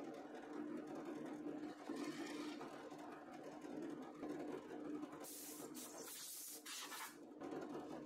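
Pillar drill press running with a steady low motor hum, its twist bit drilling a wooden log slice. Brief hissing noises come a couple of seconds in and again for about two seconds from five seconds in.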